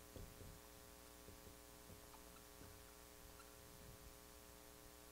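Near silence: a steady low electrical hum, with a few faint soft ticks in the first few seconds.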